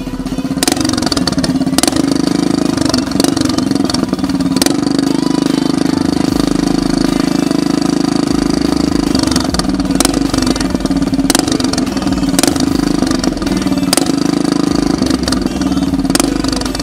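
Riding tractor mower's engine running steadily through a homemade dual exhaust with no stock muffler, with a few sharp cracks over it.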